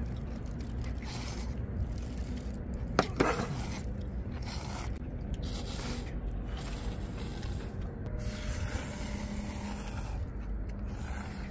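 Several people slurping and chewing ramen-style noodles, in repeated short wet bursts, with a sharp clack about three seconds in.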